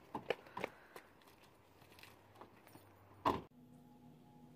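A few light knocks and rattles, then a car door slams shut once about three seconds in.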